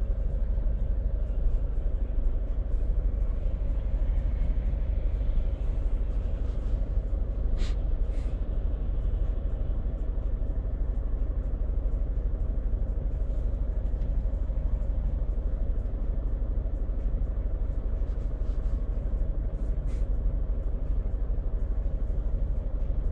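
Scania truck's diesel engine running steadily, heard as a deep drone inside the cab while driving. Two brief hisses come through, about 8 seconds and 20 seconds in.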